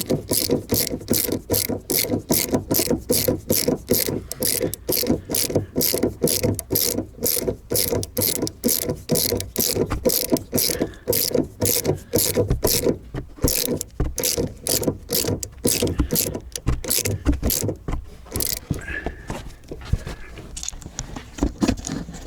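Ratchet wrench clicking in quick, even strokes, about two or three a second, tightening the 14 mm nut on a rear shock absorber's top mount. The strokes become sparser and stop near the end.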